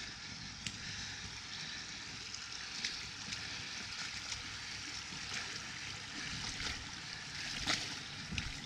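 Floodwater from an overflowing creek running steadily across a flooded woodland trail, an even rushing wash, with a few faint knocks near the middle and near the end.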